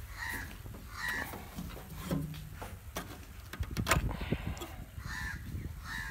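Crows cawing four times, in pairs near the start and near the end. There are a few sharp clicks and knocks in the middle as the metal filler flap on the tractor's hood is opened and the radiator cap is handled.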